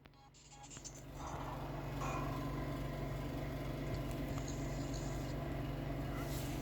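A steady low mechanical hum with an even noisy rumble, fading in over the first two seconds and then holding level.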